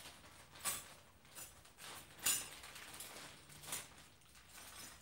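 Light, scattered metal clicks and knocks from hand tools and bike parts as bolts on an e-bike's front end are worked on, about half a dozen, the loudest a little after two seconds in.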